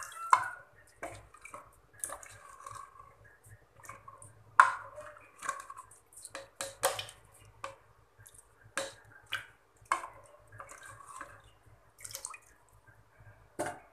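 A ladle stirring soupy rice and dal in an open pressure cooker: wet sloshing and squelching, with irregular knocks and scrapes of the ladle against the pot's metal side. The sharpest knock comes about four and a half seconds in.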